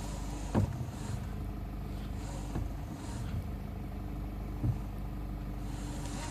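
A vehicle's engine running steadily, with a sharp knock about three times, roughly two seconds apart: the knock that the owner is recording.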